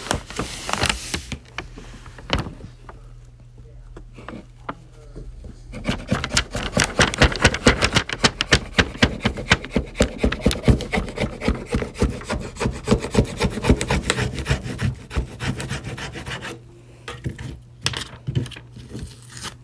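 Fingers rubbing and scraping stuck paper and transfer-tape residue off a strong-grip Cricut cutting mat: scattered strokes at first, then quick back-and-forth strokes, about four or five a second, for some ten seconds, easing off near the end.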